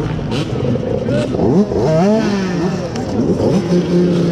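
Dirt bike engines revving, several overlapping, their pitch rising and falling over and over.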